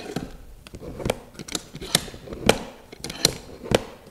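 Metal clamps being loosened and taken off a wooden bending form: a string of irregular sharp clicks and knocks from the clamp screws and the cast-iron C-clamp, the loudest about halfway through.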